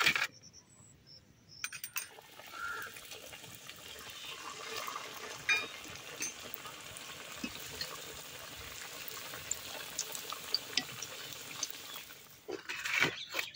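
Bird-shaped flour-dough snacks deep-frying in hot oil in a karahi: a steady sizzle with small crackles starting about two seconds in. A few sharp clicks near the end.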